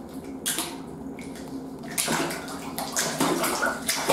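Water splashing and sloshing as a Hilaire's toad-headed turtle scrambles with its legs at the edge of its pool, starting about halfway through in irregular bursts.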